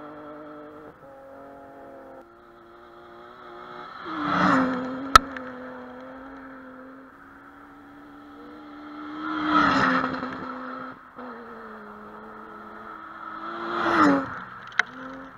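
Rally cars passing one after another at speed, about four and a half, ten and fourteen seconds in: each engine note swells as the car nears and drops in pitch as it goes by. A single sharp crack comes just after the first pass.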